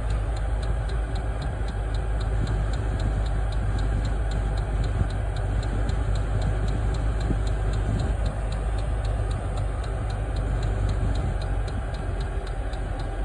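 Chinese diesel air heater running steadily, its fan and burner giving an even low hum and blowing noise. A light rapid ticking runs through it at about four a second, which fits the heater's fuel pump clicking.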